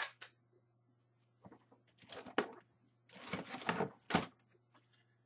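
Plastic action figures clattering and rustling against each other and a plastic storage tote as a hand rummages through the pile, with a sharp knock at the start and another about four seconds in.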